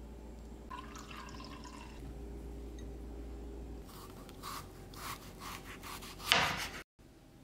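A kitchen knife cutting through a peeled kabocha squash on a cutting board: a run of short, crisp strokes, ending in one loud chop as the blade goes through to the board. Earlier, a wooden spatula spreads soft cream onto a cupcake with a light scraping.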